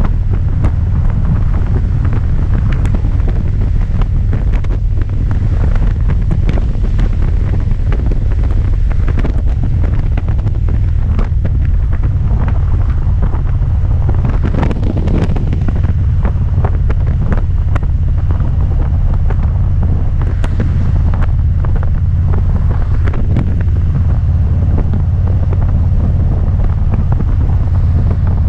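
Heavy wind buffeting the microphone of a touring motorcycle riding at road speed, over a steady low rumble that does not let up.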